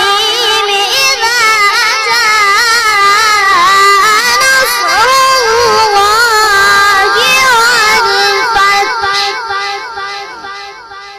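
A boy reciting the Quran in melodic tilawat style, one voice with wavering, ornamented pitch and a strong echo on it. The voice fades out over the last few seconds, leaving a repeating echo.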